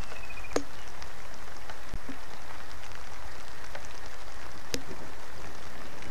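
Steady rain falling, a constant hiss with scattered sharp ticks of drops hitting surfaces close to the microphone.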